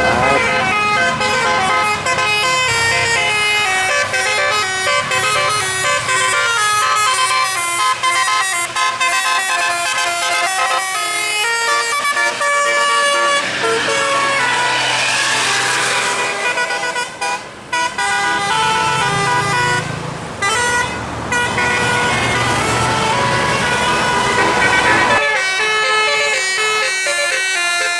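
Bus 'telolet' musical air horn playing a fast melody of many short, stepping notes, over and over. A hiss swells and fades around the middle, and a low rumble beneath drops away near the end.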